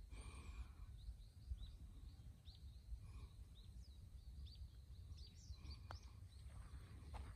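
Quiet outdoor ambience: small birds chirping in short, falling calls over a low wind rumble, with one faint click about six seconds in.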